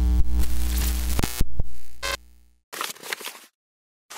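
Electronic music sting: a loud, deep synth tone with a beat, cutting off about two and a half seconds in, then a few short rustling sounds.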